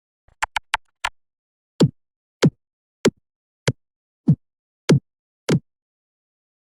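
Pitched-down sound effect: a quick patter of four clicks, then a steady series of about nine short, sharp hits, one every half second or so, each dropping quickly in pitch, with silence between them.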